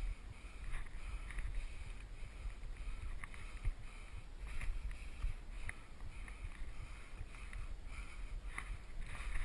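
Low rumble of wind and handling noise on a body-worn camera's microphone, with scattered scrapes and knocks of a climber scrambling hand and foot over rock.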